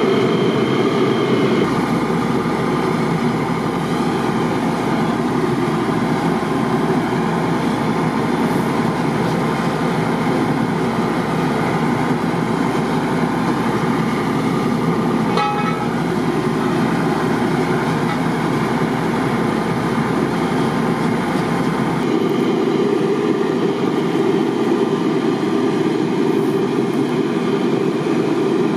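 A fire truck's diesel engine and pump running steadily, under a dense, even rushing noise. A brief high chirp sounds about halfway through.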